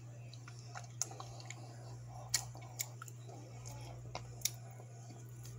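Quiet close-up chewing of a baked white bass eyeball, with a few sharp clicks of the mouth, over a low steady hum.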